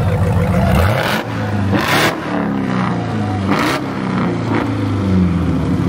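Car engine revving over a steady low engine note, its pitch rising quickly about a second in, with a couple of brief, noisier surges later on.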